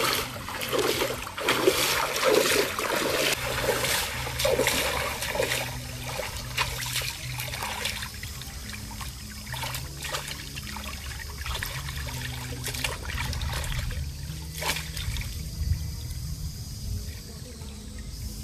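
Shallow stream water splashing and trickling as someone wades and handles fish in it, busiest in the first few seconds, then quieter and steadier.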